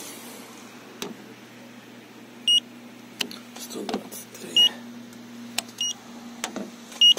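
Handheld paint thickness gauge beeping four times, a short high beep each time its probe takes a paint-thickness reading on the car body, with a few light clicks in between.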